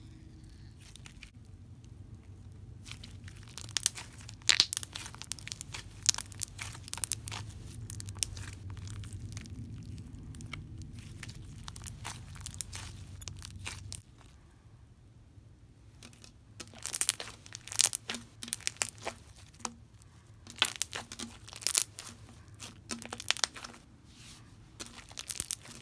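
Green slime with small beads mixed in, squeezed, stretched and pressed by hand, giving quick runs of sharp crackles and pops. It goes quieter for about three seconds a little past the middle, then the crackling starts again.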